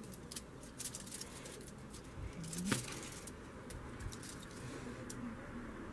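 Faint scattered clicks and crinkles of hands working gingerbread pieces over crumpled aluminium foil. About two and a half seconds in there is a brief low rising hum, ending in a sharper click.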